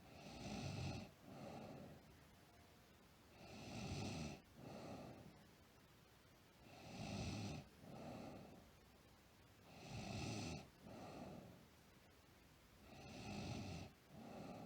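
A sleeping girl snoring, about one snore every three seconds, five in all; each is a longer breath followed at once by a shorter one.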